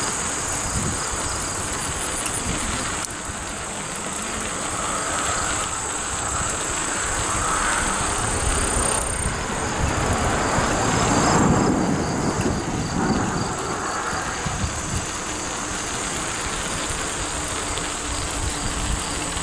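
Wind and riding noise from a bicycle rolling along a paved trail, over a steady high-pitched insect chorus. The noise swells for a few seconds about halfway through, passing under a road overpass.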